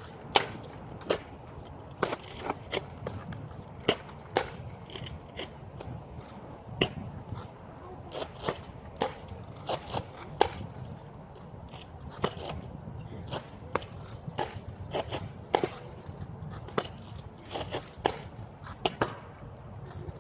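Nerf Rival blasters firing, a run of sharp, irregular clicks and pops, sometimes two or three a second, over a steady low background hum.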